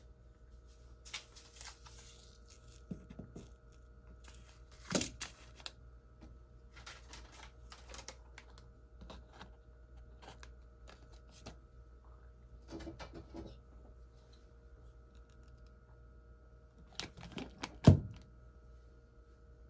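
Kitchen preparation sounds: scattered clicks and light knocks of things being handled and set down on a counter, a short rustle about a second in, and a heavier knock near the end, over a faint steady appliance hum.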